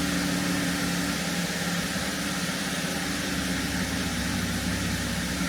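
Holden LFX 3.6-litre V6 idling steadily and evenly on freshly fitted spark plugs, running nice and smooth after a rough first start.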